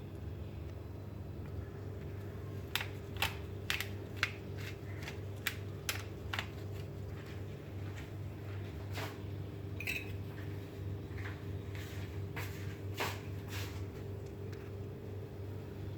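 Kitchen utensils clinking and tapping on cookware at irregular intervals, a dozen or more short, sharp knocks, over a steady low mechanical hum.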